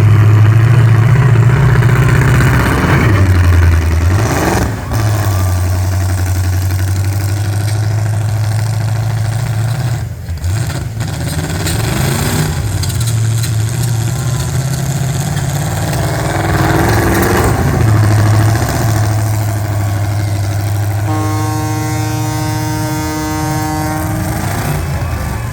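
Demolition derby car engines running and revving, rising and falling. Near the end a steady horn sounds for about four seconds.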